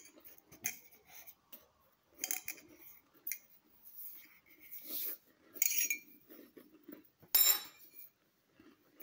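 Scattered small clinks and clicks of handling, like a spoon or dishes being moved, with two louder clatters in the second half.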